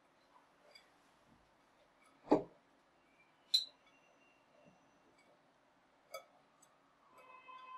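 A spoon knocking and clinking against a glass mixing bowl as thick batter is scraped out into a baking tin: two sharp knocks about two and a half and three and a half seconds in, a lighter one about six seconds in, and small ticks between.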